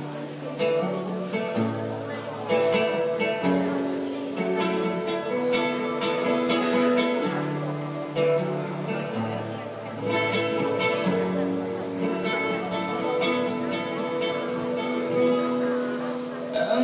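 Acoustic guitar strumming chords at a steady, even pace, played live as a song's instrumental intro.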